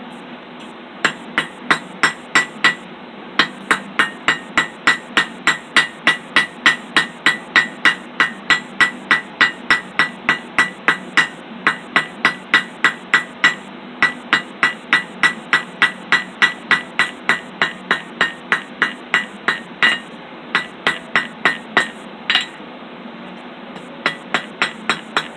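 Small blacksmith's hammer striking hot steel on an anvil in quick runs of about three blows a second, each blow ringing, with brief pauses between runs; rounding off the drawn-out fork of a steel roasting stick.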